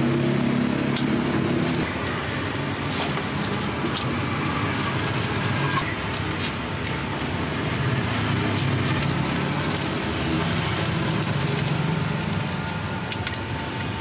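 Steady engine noise, with a few sharp clicks as plastic lids are pressed onto drink cups.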